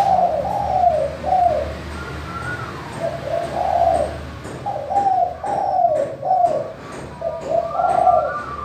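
Spotted dove (tekukur) cooing: four phrases of low, arching coos, each phrase two to four notes, with short pauses between phrases.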